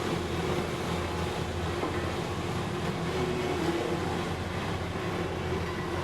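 Heavy diesel road-construction machinery running steadily, a continuous low engine drone with a noisy mechanical rumble over it.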